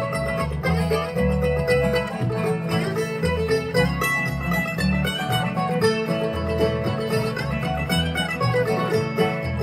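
Acoustic bluegrass band playing an instrumental break: banjo, mandolin and acoustic guitar picking over an upright bass plucking a steady beat.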